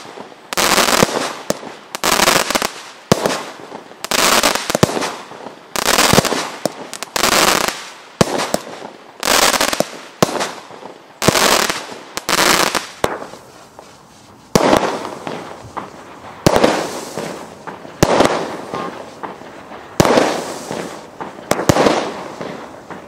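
WATT 8-Ball fireworks cake firing shot after shot, roughly one a second and a bit further apart in the second half, each a sharp bang trailing off in a short hiss.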